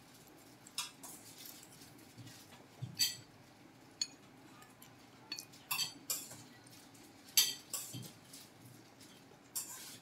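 Metal spoon clinking and scraping against a ceramic bowl of noodle soup with meatballs, in a handful of short, separate clinks.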